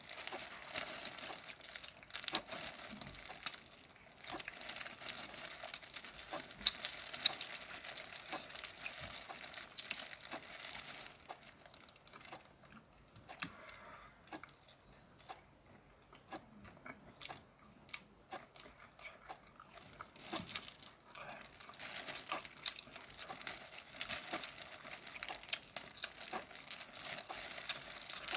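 Close-miked eating of steamed shrimp: a dense run of crackling and crunching from shells being broken and chewed, softer for several seconds around the middle.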